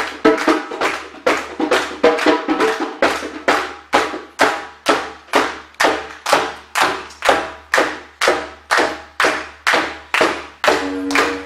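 Live hand percussion from a djembe player, sharp ringing strikes in a steady beat of about two and a half a second. A held pitched tone joins about a second before the end.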